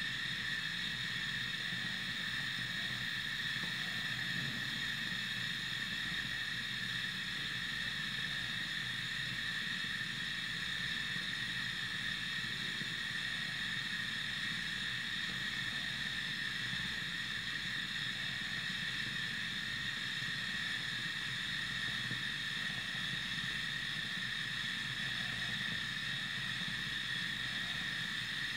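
Steady background hiss with two constant high-pitched whining tones and a low rumble beneath, unchanging throughout.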